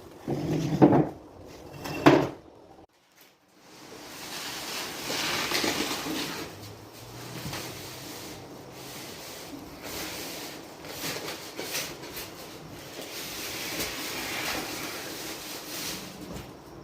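Knocks, then a long stretch of rubbing and scraping as a small boxed refrigerator is moved into place and unpacked.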